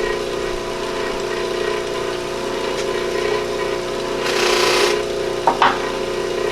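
Buffing machine motor running steadily with a constant hum. About four seconds in there is a brief hiss, then two quick knocks, as pieces are handled at the wheel.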